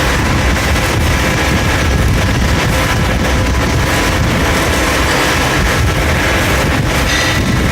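CNC machine running: a loud, steady mechanical noise with faint steady whining tones, and a brief higher tone about seven seconds in.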